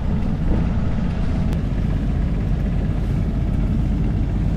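Steady low rumble of a sailboat under way at about four knots, with wind buffeting the microphone.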